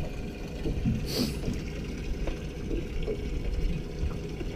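Steady wind rumble and water lapping around a small open boat, with a short high hiss about a second in.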